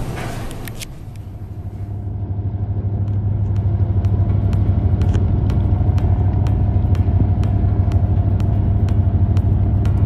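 Storm wind and heavy sea rushing, fading out in the first second or two; then a boat's engine humming steadily, with faint ticks about twice a second.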